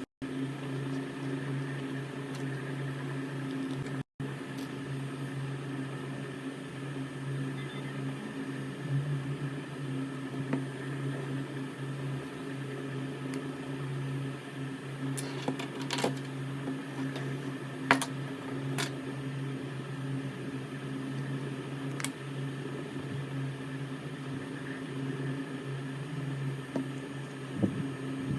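A small motor humming steadily, with a few sharp light clicks in the second half.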